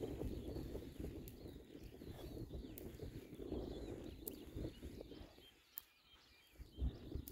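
Oxford Sandy and Black sow and piglets grazing and rooting close by, a busy low rustle and crunch of grass and soil being worked over by their snouts and mouths, easing off for about a second past the middle. Faint bird chirps in the background.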